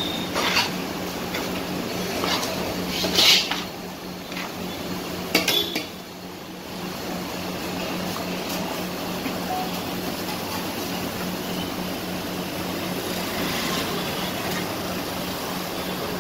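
A few scattered clinks of metal dishes or utensils in the first six seconds, over an even background hiss with a steady low hum; no steady chopping rhythm.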